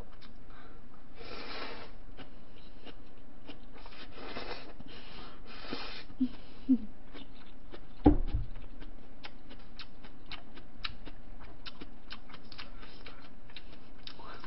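Noodles slurped in a few hissing bursts, then chewing with many small wet mouth clicks, close to the microphone. About eight seconds in comes one loud knock as the bowl is set down on the table.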